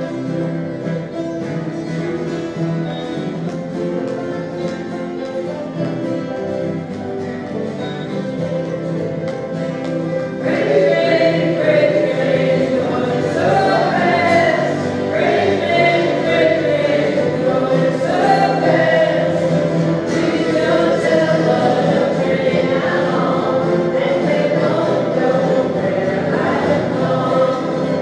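A folk jam group strumming acoustic guitars together with other string instruments. About ten seconds in, the whole group starts singing along and the music gets louder.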